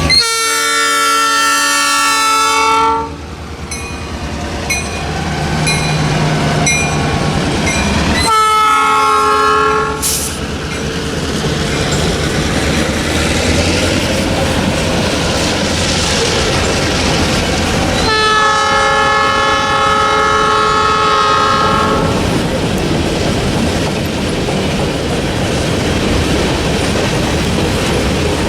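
Diesel freight locomotive's multi-note air horn sounding a long blast, a short blast and another long blast, the end of the grade-crossing signal, over the rumble and clickety-clack of the passing train.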